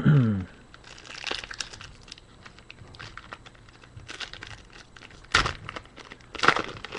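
A trading-card pack wrapper being torn open and crinkled, with the cards handled, in several rustling bursts: one about a second in and two louder ones near the end. A short vocal sound at the very start.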